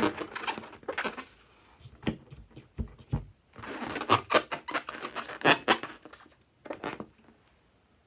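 Large latex balloon being handled: irregular rubbery squeaks, rubs and taps as hands turn and lift it, with the busiest stretch about halfway through and quiet near the end.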